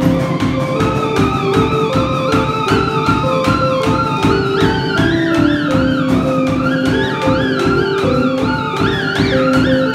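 Live garage-rock band playing: a steady drum-kit beat under short held electric keyboard notes, with a high, wavering, gliding theremin line over the top.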